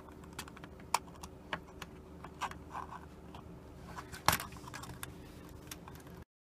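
Small clicks, taps and light scrapes of an alarm clock's parts being handled and pried apart by hand, with one sharper knock about four seconds in. The sound cuts off suddenly near the end.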